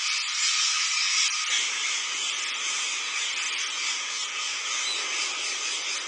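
Dense, hissing din of a large flock of rose-ringed parakeets on the ground, hundreds of small calls blending into one continuous noise. A lower rumble joins about a second and a half in.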